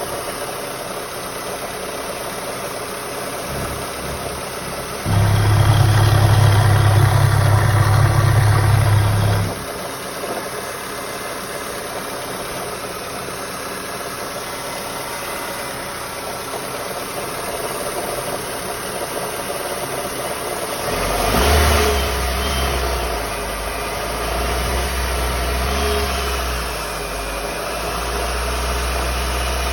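Mitsubishi Lancer IX's 4G18 1.6-litre four-cylinder petrol engine running, with an unexplained knock that the owner is trying to trace. It has a much louder steady stretch from about five to nine seconds in and a rise in speed a little after twenty seconds.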